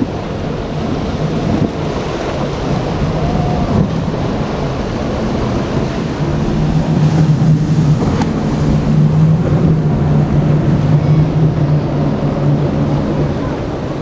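Motorboat engine droning, louder from about halfway through until near the end, over the wash of surf and wind on the microphone.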